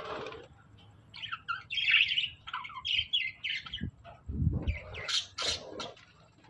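Budgerigars chirping in quick runs of short, high calls, with a low bump and a few harsher squawks about two-thirds of the way through.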